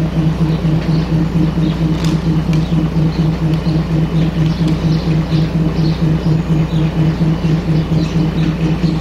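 Malaxa DMU's diesel engine running steadily, a low hum that pulses evenly several times a second.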